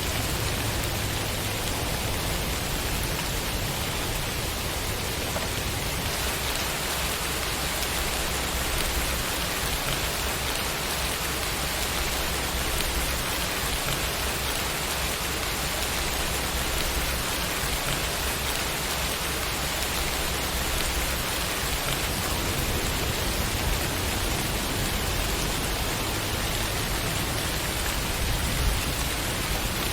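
Steady rain falling, an even dense hiss of raindrops on a surface.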